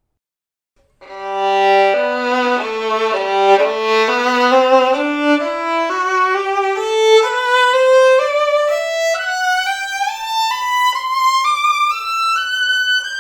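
A Guarneri del Gesù–model violin played solo. It comes in about a second in on low notes, then plays a scale that climbs note by note to a high register by the end.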